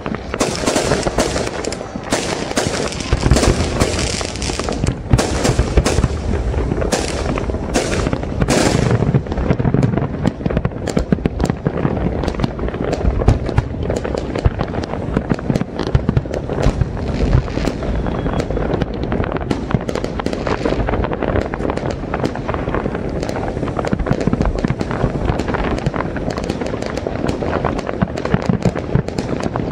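Fireworks display: aerial shells and shoreline fountains going off in a rapid, unbroken string of bangs and crackles, the high crackle sharpest in the first nine seconds or so.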